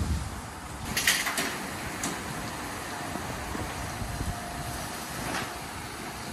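Ryko Select-A-Wash rollover car wash running its wash cycle: steady machinery and wash noise, with short hissing bursts about a second in and again near the end.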